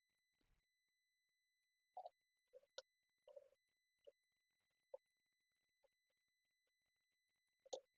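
Near silence with a few faint, short clicks and taps of small parts being handled, the clearest about two seconds in and near the end, over a faint steady high-pitched electronic whine.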